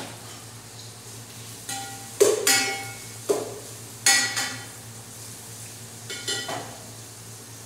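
Metal cookware clanking on the stove: a utensil or lid striking a metal pot or pan in several ringing clanks, loudest about two and four seconds in, with a last pair near the end, over a steady low hum.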